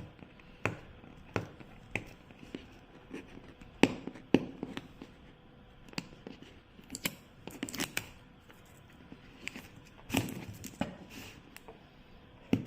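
Cardboard packaging being handled and its paper tamper-evident seal picked at and torn: scattered taps and clicks, with a longer stretch of tearing and rubbing about ten seconds in.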